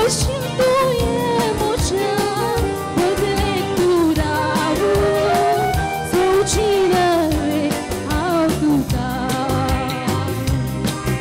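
A woman singing a pop song with vibrato into a microphone, backed by a live band with drums and electric guitar.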